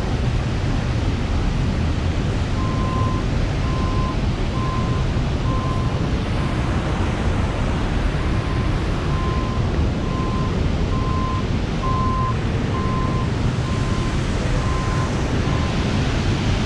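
Steady roar of a large waterfall with wind buffeting the microphone. A faint string of short, even-pitched beeps repeats from about three seconds in until near the end.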